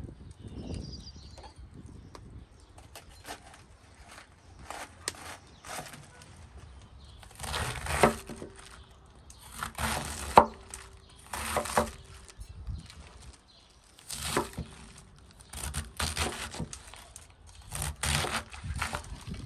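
Irregular crisp cracking and tearing sounds, a dozen or so, of something being broken or torn apart by hand, loudest in a cluster about halfway through.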